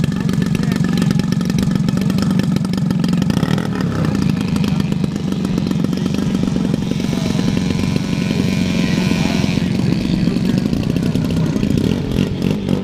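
Engine of a large-scale Gee Bee racer RC model plane running steadily with the propeller turning, held on the ground, its pitch shifting up and down a little midway through.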